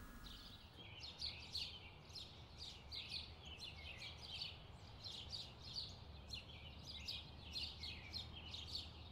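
Birds chirping, a rapid run of short high chirps repeating many times, over a faint low hum.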